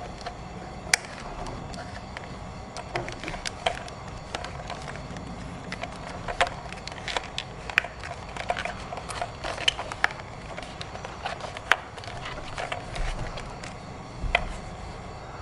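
Irregular clicks and taps of small hard objects being handled, as in unboxing a toy, over a steady low hum.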